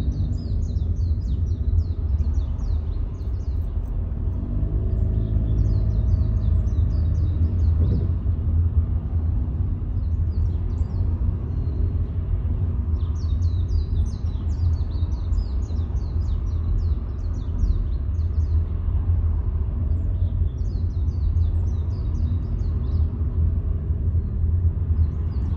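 Steady low rumble of a car driving along a road, with bursts of high, rapid bird chirping every few seconds over it.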